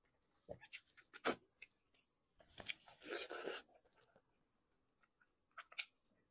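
Close-miked eating sounds from chewing braised beef trotter tendon: soft sticky smacks and clicks of the mouth. There is a sharp click about a second in, a longer noisy stretch around three seconds in, and a few small clicks near the end.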